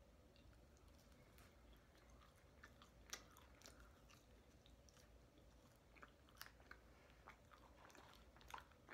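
Faint close-up chewing of McDonald's French fries: scattered soft mouth clicks, with a few sharper crunches about three seconds in and again from about six seconds on, over a faint steady hum.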